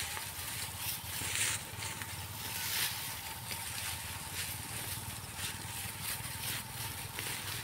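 Rustling and crackling of groundnut (peanut) plants being pulled up from the soil by hand, in short irregular bursts, over a steady low rumble.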